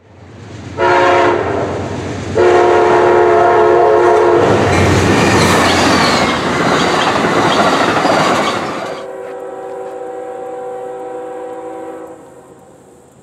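Amtrak passenger train's diesel locomotive horn: a short blast, then a long one. The train then rushes past at speed with the horn still sounding. The horn chord sounds a little lower after the train passes and fades near the end.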